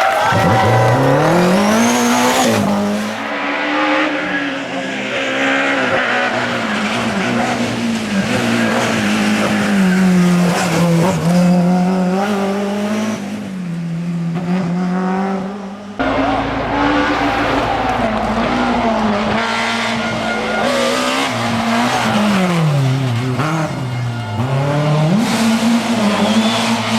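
BMW M3 E30 rally car's S14 four-cylinder engine revving hard through the gears, its pitch climbing and dropping with each shift and lift, with tyre squeal. The sound breaks off abruptly about sixteen seconds in and picks up again on another stretch of the run.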